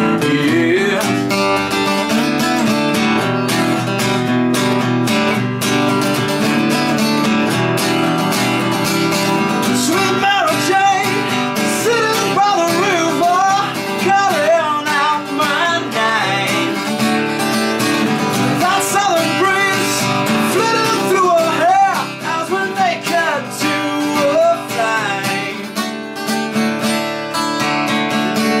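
Acoustic guitar strummed and picked through an instrumental passage of a song. A man's voice sings a wordless wavering melody over it from about ten seconds in until about twenty-two seconds, then the guitar carries on alone a little more quietly.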